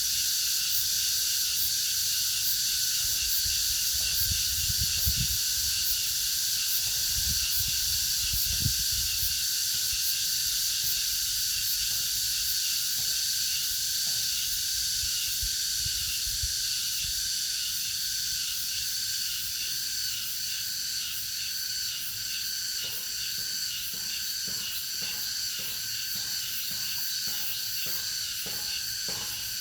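A chorus of cicadas buzzing steadily and shrilly. Near the end a pulsing call of about two beats a second joins in, and a few seconds in there is some low rumbling.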